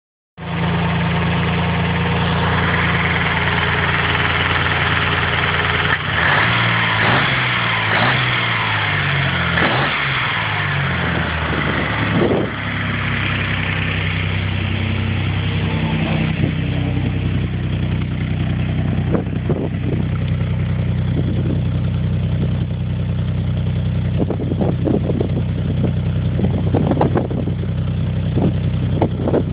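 Mazda KL-DE 2.5-litre V6 on individual throttle bodies, swapped into an MX-5 Miata and running on its first start. It idles, is revved up and down several times a few seconds in, then settles back to a steady idle.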